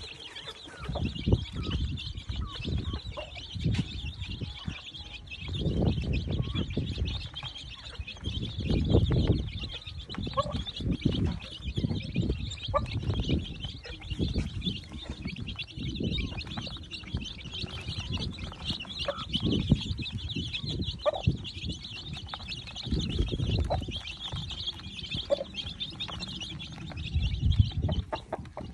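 A brood of chicks peeping continuously as a dense high chorus, with a hen clucking now and then. Irregular low rumbles come and go underneath.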